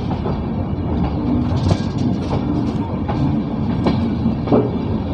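Passenger train coach running on the rails: a steady rumble with the clatter of wheels over rail joints, sharp knocks coming every half second to a second.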